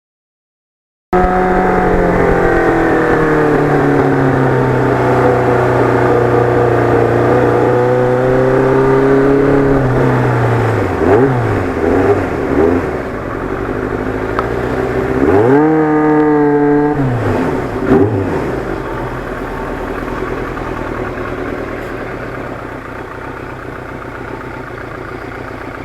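Kawasaki Ninja GPX750R inline-four motorcycle engine running through its Norton muffler while riding: the engine note falls steadily as the bike slows, then a few short blips of throttle and one quick rev up and down about halfway through, before it settles into a lower, steadier run that slowly fades.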